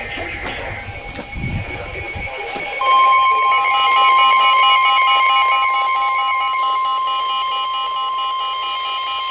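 NOAA Weather Radio receivers sounding a warning alert: the steady single-pitch warning alarm tone starts about three seconds in and holds, joined by pulsing alarm beeps from other receivers. The tone announces a warning broadcast. Before it, fainter tones and a couple of clicks.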